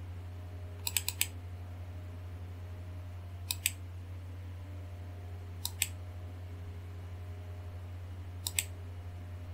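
Computer mouse button clicks in four short groups: a quick double-click about a second in, then a press-and-release click every two to three seconds. A steady low hum runs underneath.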